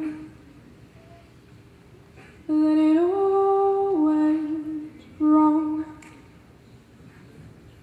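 A young woman's voice singing without accompaniment into a microphone: a long held phrase about two and a half seconds in that steps up in pitch and back down, then a short held note near five seconds in, with quiet pauses between.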